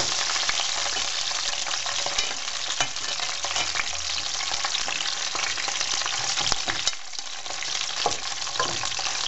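Hot olive oil sizzling and crackling in a metal frying pan as pieces of browned rabbit are laid in with tongs, with a few sharp clicks of the tongs against the pan.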